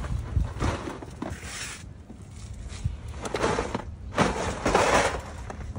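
Scraping and rustling as things are pulled out of a car's back seat, in several bursts, the longest and loudest about four to five seconds in, over a steady low rumble.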